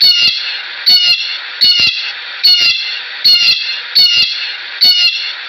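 Blue jay giving its harsh jeer call over and over, about one call every 0.8 seconds, seven times; each call falls in pitch.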